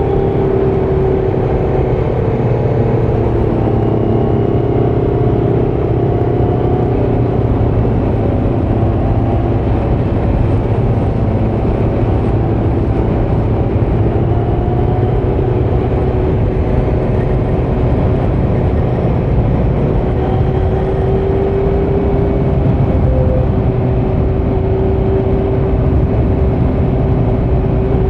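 Kawasaki Z900's 948 cc inline-four running through a Leo Vince muffler without its dB killer, holding fairly steady revs under way with only small rises and dips in pitch.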